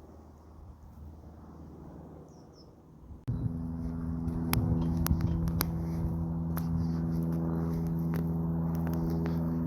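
A faint low hum, then about three seconds in, a steady motor drone cuts in abruptly with a few sharp clicks over it.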